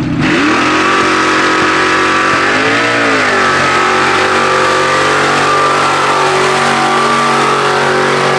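Lifted Chevrolet square-body mud truck's engine at full throttle, dragging a heavy tractor tire through dirt. It opens up suddenly at the start, and its pitch rises and falls briefly about three seconds in. It then holds a steady, loud, high-revving run.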